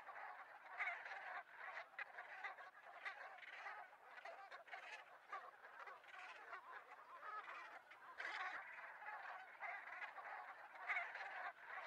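A large flock of dark-bellied Brent geese calling, a steady chorus of many short, overlapping calls.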